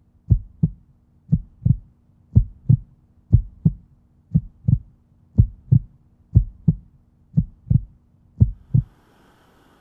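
Heartbeat sound effect: pairs of low thumps, lub-dub, about one pair a second, nine times over. It stops near the end, giving way to a faint hiss.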